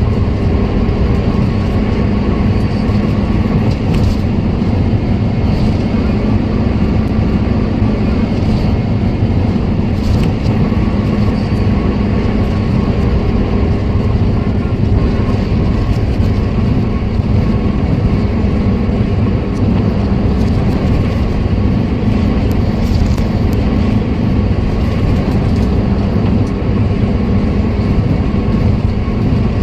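Car driving on a road at a fairly steady speed: continuous engine and road rumble.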